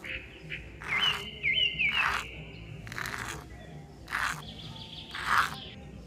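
A miniature hand shovel scooping sand from a toy trailer and tipping it out, about six short gritty pours in turn.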